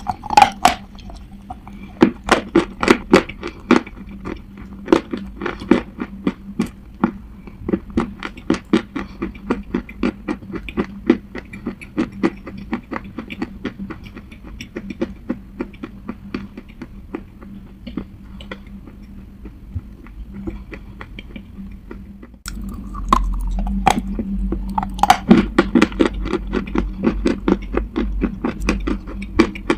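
Close-miked crunching of hard clay being chewed: a fast, irregular run of sharp crunches and clicks as it is ground between the teeth. About three-quarters of the way through the sound steps up louder with a low hum underneath, and the crunching carries on.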